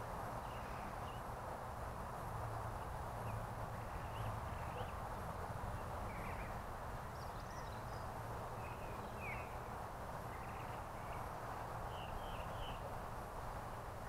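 Backyard ambience: scattered short chirps and calls from small birds, over a steady background hum.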